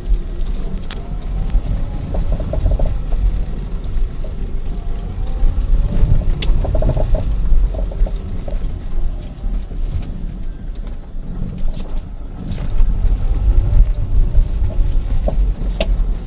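Car driving over the road with a steady low rumble, broken by a few sharp knocks from the right-side suspension; the knocking comes from a worn-out shock absorber.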